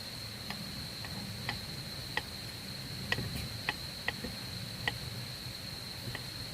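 A steady high-pitched insect trill, with about ten sharp, irregular clicks over it.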